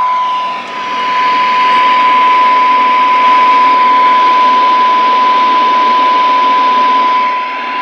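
Connex CX-33HPC1 CB radio receiving a steady single-pitch test tone from a signal generator, heard through its speaker over a bed of receiver hiss. The signal is set low, near the receiver's noise floor, to find where the tone falls out into the static during a sensitivity (SINAD) check.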